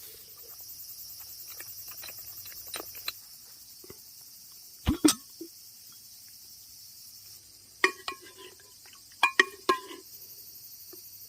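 Autumn crickets chirping steadily in the background, with a few sharp knocks about five seconds in and a cluster of short clinks and knocks between about eight and ten seconds.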